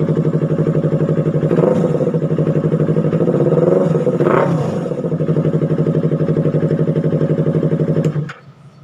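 Yamaha R3's 321 cc parallel-twin engine idling loudly through an aftermarket SC Project exhaust, with two quick throttle blips about two and four seconds in. The engine sound cuts off abruptly near the end.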